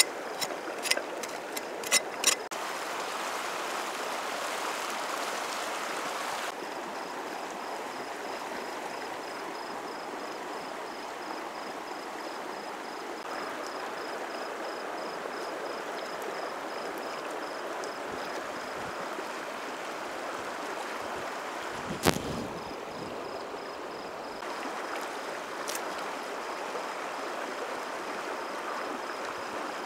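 River water rushing steadily. A few sharp clicks come in the first two seconds, a single knock about 22 seconds in, and a faint high-pitched pulsing runs through most of it.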